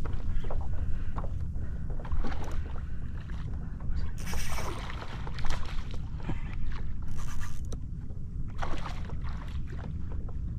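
Sounds from a kayak on calm water: a steady low rumble of wind on the microphone, with short hissing swishes a few times.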